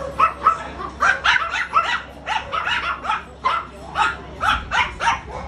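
A dog barking in a rapid, unbroken run of short, high-pitched barks, about three a second.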